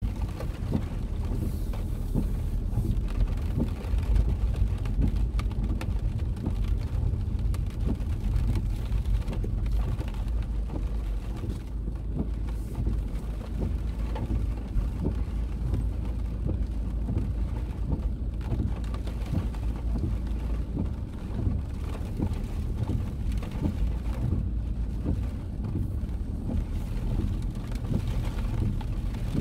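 Rain hitting a car's roof and windscreen in many small ticks, heard from inside the cabin over the steady low rumble of the car moving slowly.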